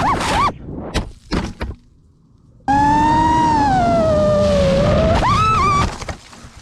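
FPV quadcopter's brushless motors whining, the pitch swooping with the throttle, then cutting out about half a second in, followed by a few sharp knocks as the drone crashes. About two and a half seconds in, another drone's motor whine starts, falls slowly in pitch, rises sharply near the end and cuts off suddenly.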